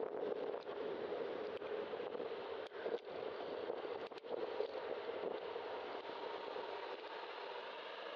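Steady rush of wind and tyre noise picked up by a camera on a moving bicycle, with passing car traffic alongside and a few light clicks from the bike about a third and halfway through.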